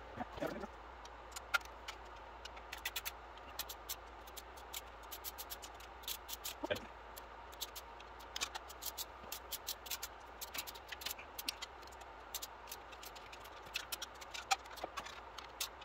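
Torque wrench ratcheting in short strokes, quick runs of small metallic clicks, as the oil pan bolts are tightened to 80 inch-pounds.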